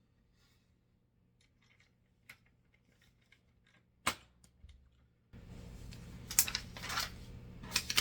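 Light clicks and taps of small hardware being handled while a cabinet handle is screwed on, with one sharp click about four seconds in. From about five seconds a steady hiss comes up under a cluster of louder clicks.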